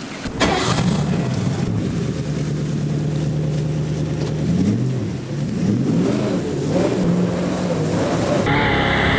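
A boat's gasoline engine starts up about half a second in and runs steadily, then is revved up and down with the throttle. Near the end the sound changes to the boat running fast over the water, with engine and a hiss of water spray.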